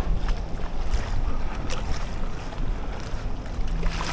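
Wind buffeting the microphone, a steady low rumble with a few faint clicks.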